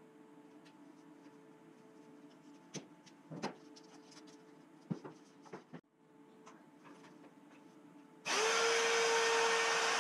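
A few light clicks and knocks, then a hand-held router is switched on about eight seconds in, spins up and runs steadily with a loud whine.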